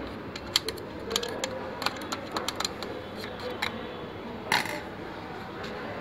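Irregular clicks and taps of a screwdriver and fingers on the plastic and metal parts inside an open Epson LX-300+ dot-matrix printer, with a louder, slightly longer one about four and a half seconds in.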